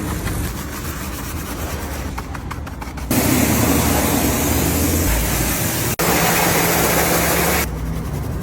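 Water spray rinsing an engine bay: a loud, even hiss that starts suddenly about three seconds in, breaks off for an instant about six seconds in, and stops shortly before the end. Before it there is a quieter steady noise.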